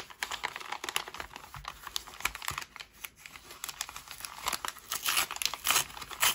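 Gold paper padded mailer being crinkled and torn open by hand: dense crackling of stiff paper with short tearing rips, loudest near the end.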